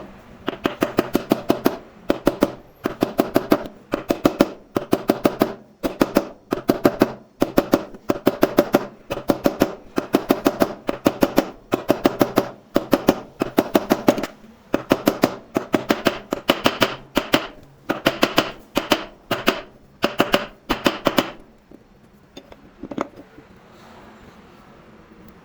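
Metal being struck with a hammer in quick bursts of several blows, each blow ringing, repeated over and over for about twenty seconds, then stopping.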